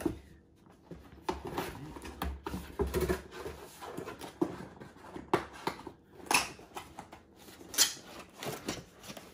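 Cardboard box flaps and a thin white protective wrap rustling and scraping as a laptop is slid out of its box, with irregular crinkles and a few sharper crackles.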